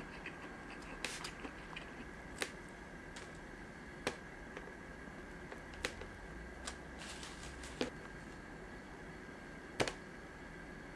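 Quiet eating sounds: about seven short, scattered clicks and taps, the sharpest near the end, over a faint steady hum.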